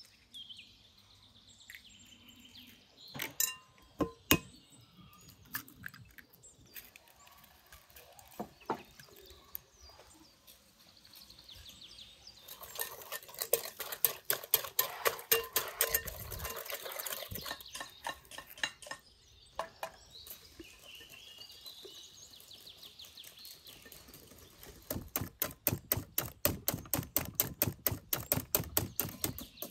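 Steel wire whisk beating eggs in a glass bowl: fast, even ticking of the wires against the glass in two bouts, one near the middle and one near the end. A few sharp knocks come a few seconds in, and birds chirp faintly in the quiet gaps.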